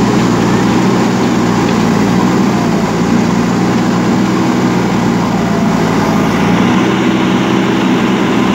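JCB backhoe loader's diesel engine running steadily as the machine works with its front loader bucket down in the soil.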